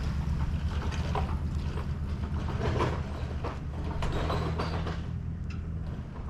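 An engine running at a steady low idle, with scattered rattles and knocks over it.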